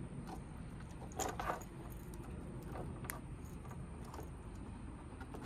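Faint small metal clicks and clinks as a snap swivel and the umbrella rig's wire arms are handled and a lure is clipped on, with a short louder rattle about a second in and a single sharp click near the three-second mark.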